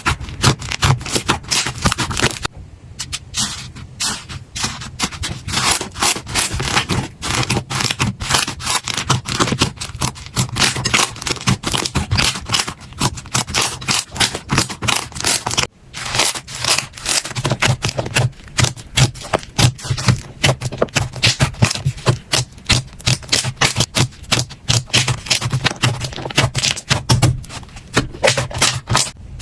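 Slime being squeezed and worked by hand, giving a dense stream of rapid crackling clicks and pops, with a brief lull near the start and a sudden cut about halfway through.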